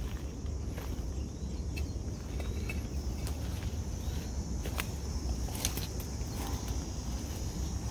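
Footsteps on dry leaf litter and pine needles, scattered crackling steps, over a steady high buzz of insects and a low rumble.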